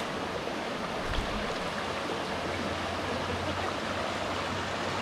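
Small creek flowing, a steady, even wash of running water.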